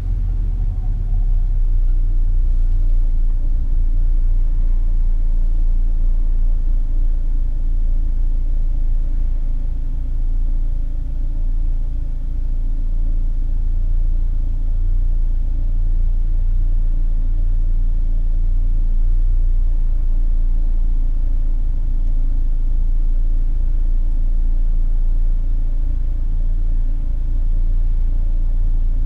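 Peugeot 206 driving: a steady engine and road rumble with a heavy low drone, building over the first couple of seconds and then holding level.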